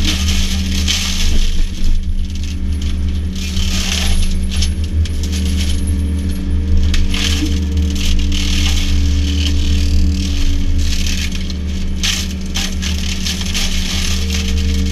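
A Berti PARK SB90 hydraulic mulcher on a Yanmar VIO50U mini excavator is running with a steady low drone. Its rotor chews through brush and wood, throwing out irregular sharp cracks and rattles of debris.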